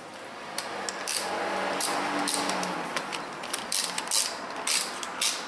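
Thread tap being turned by hand in a tap wrench, cutting threads in a small metal part with irregular metallic clicks and creaks. The stripped hole is being tapped out to take a helicoil thread insert.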